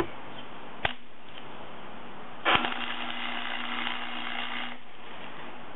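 Welding arc crackling and buzzing steadily for a little over two seconds while a tack weld is laid on a 5/8 axle part, after a sharp click about a second in.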